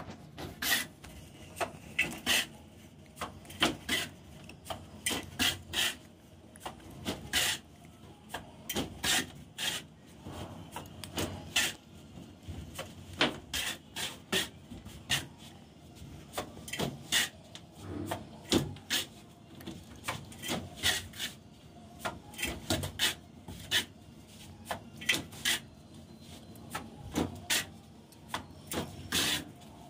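Mason's steel trowel scraping cement mortar off a concrete floor and flinging it up onto a concrete ceiling: an irregular run of sharp scrapes and slaps, roughly one or two a second, as the mortar is thrown on to fill bare spots in the ceiling plaster.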